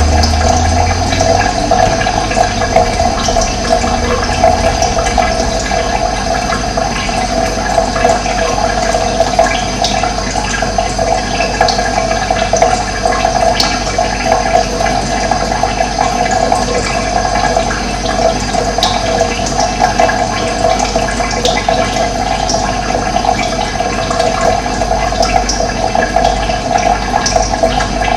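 Steady rush of running water, an even flow without breaks. A low rumble underneath fades out in the first few seconds.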